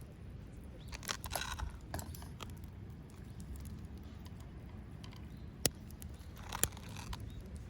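Small wood fire burning in a Belmont TABI compact fire stand, crackling in short clusters with a few sharp single pops.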